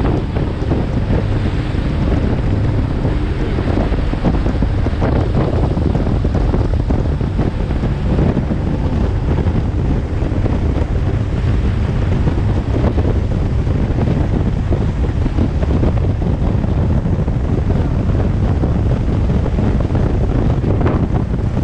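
Steady wind rumble on the action camera's microphone as an open speedboat runs fast over choppy river water, with the rush of water past the hull underneath.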